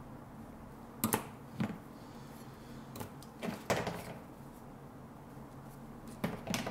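Handling noise of stiff sheathed electrical cable being bent by hand and wired fittings shifted and set down on a board: scattered light knocks and clicks, a few more close together near the end.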